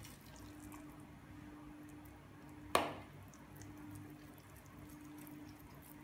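Faint wet squishing of hands working raw ground-meat mixture in a plastic bowl, with one sharp click about three seconds in, likely the metal scoop knocking the bowl, over a low steady hum.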